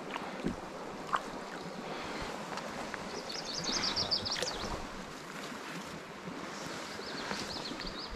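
Steady rushing of a brook's flowing water. A high, rapid chirping comes in two spells, about three seconds in and again near the end, and there is a single sharp click about a second in.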